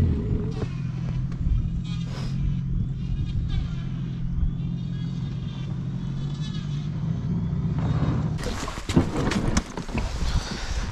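Boat outboard motor running steadily, then stopping about eight seconds in, followed by a burst of knocks and rattles.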